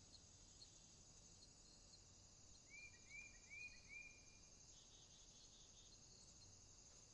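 Faint warm-weather outdoor ambience: insects chirring steadily in a high, pulsing drone. About three seconds in, a bird gives four short arched chirps, followed by a few faint higher ticks.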